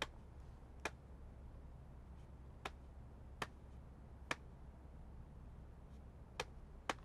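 Low steady room hum with about seven short, sharp ticks at uneven intervals, two of them close together near the end.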